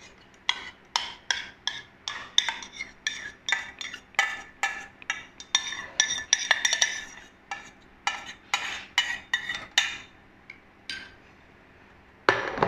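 Metal spoon scraping and clinking against a stainless-steel strainer and steel pan, two or three sharp metallic clinks a second, as thick sago porridge is pushed through the strainer into a glass bowl. A louder clatter near the end.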